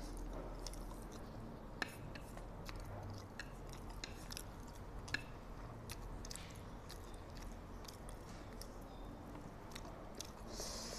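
Quiet, close-up chewing of spicy instant fried noodles, picked up on a clip-on microphone: soft wet mouth sounds with scattered small clicks. Two sharper clicks come about two and five seconds in, and there is a short breathy hiss near the end.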